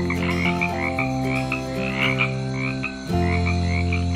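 A chorus of frogs croaking with quick repeated chirps, over sustained low tones that shift pitch twice.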